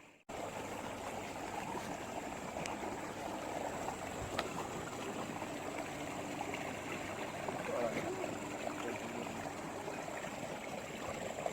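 Water running and lapping steadily, with a faint steady high-pitched tone over it and a single click about four seconds in.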